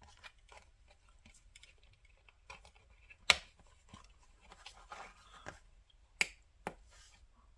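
Small scattered clicks and taps of test clips and leads being handled and hooked onto a capacitor for a meter test, with a sharp click about three seconds in and two more near the end.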